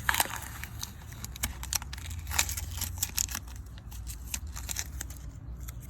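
Masking tape and paper being peeled off a freshly spray-painted wheel and crumpled, an irregular crackling and tearing.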